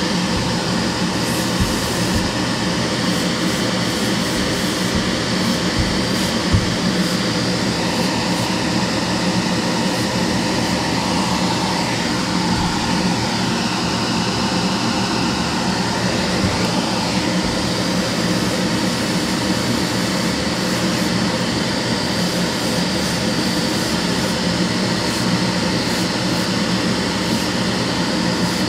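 Spray booth extractor fan running: a steady rush of air with a constant low hum.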